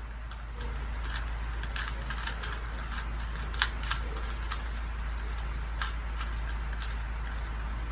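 Plastic Rubik's cube layers being turned by hand: irregular quick clicks and rattles, the sharpest about three and a half seconds in, over a steady low hum.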